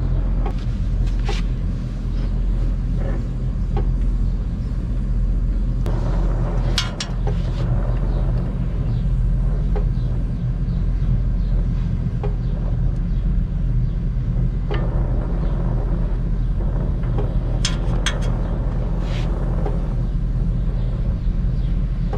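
Gas brazing torch flame burning with a steady low rumble while it heats a copper refrigerant pipe joint on an air-conditioner compressor, with a few light sharp clicks scattered through it.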